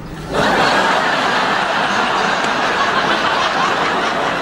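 Studio audience laughing, breaking out suddenly about a third of a second in and carrying on steadily.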